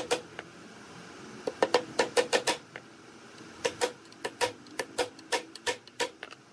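Hammer tapping a steel punch to drive the fasteners of a metal hinge into a wooden cabinet door: sharp metal-on-metal taps with a short ring. Two taps at the start, a quick run of taps after about a second and a half, then a steady run of about ten taps from about halfway through.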